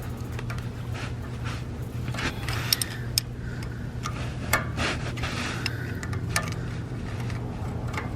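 Metal clinks, knocks and scrapes of a wrench being worked on a stuck fitting that is slow to come loose, irregular and a few seconds apart, over a steady low hum.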